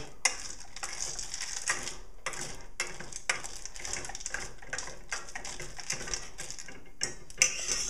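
A metal teaspoon stirring chocolate chips in a stainless steel bowl, making irregular scraping and light clinks against the metal.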